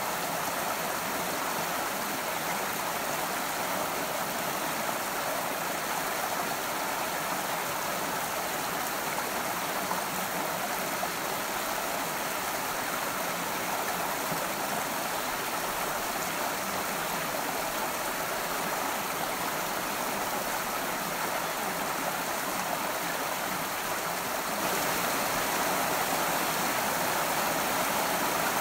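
A forest creek flowing steadily over rocks: an even rush of running water, a little louder for the last few seconds.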